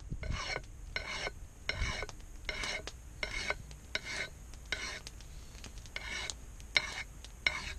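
A knife scraping in regular rasping strokes, about one every three-quarters of a second.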